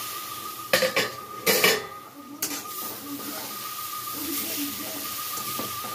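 Two loud metal clanks on an iron kadai in the first two seconds. Then a metal spatula stirs and scrapes shredded cabbage and potato frying in the pan, with a soft sizzle.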